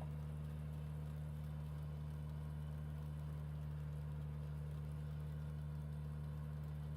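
Tractor engine running at a steady speed, a constant low hum with no change in pitch.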